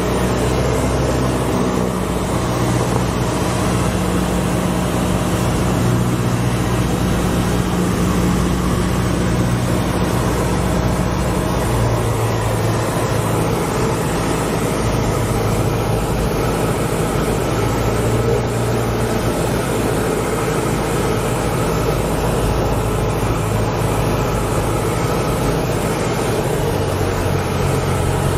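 The propeller and four-cylinder Lycoming O-320 engine of a 1980 Cessna 172N run steadily, heard from inside the cockpit as a loud, even drone. The engine note drops lower about twelve seconds in and stays there.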